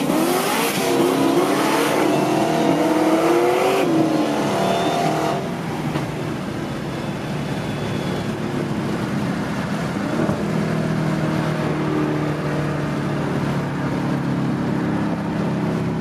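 Muscle car engines accelerating hard, their revs climbing and dropping over and over for the first five seconds or so, then settling into a steady cruising drone.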